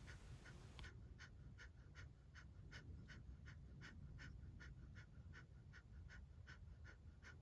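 Faint, rhythmic, forceful exhalations through the nose in Kapalbhati breathing, short sharp puffs at about three a second, starting about a second in.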